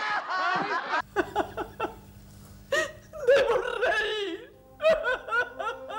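A woman crying in broken sobs and wails, over a steady low hum from an old recording. In the first second, before a cut, loud overlapping voices and laughter from another scene.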